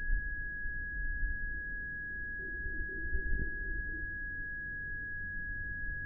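A single steady high-pitched ringing tone, like ringing in the ears, held at one pitch over a low rumble: a film sound effect for a character in shock.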